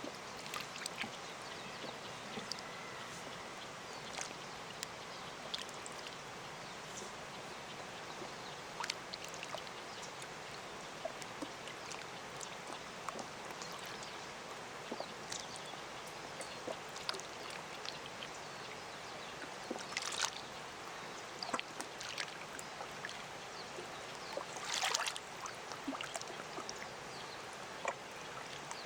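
Small lake waves lapping at the shore in quick little splashes, two louder ones about 20 and 25 seconds in, over the steady hiss of a distant waterfall.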